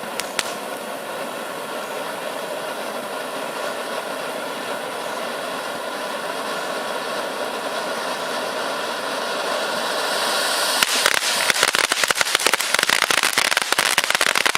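Ajax Ant Eater novelty ground firework spraying with a steady hiss. About eleven seconds in it breaks into loud, dense crackling, many rapid pops: its silver crackling effect.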